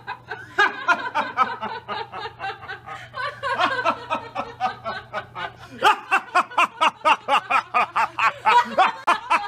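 Several people laughing hard together, a rapid, pulsing ha-ha-ha with overlapping voices. It grows louder about six seconds in.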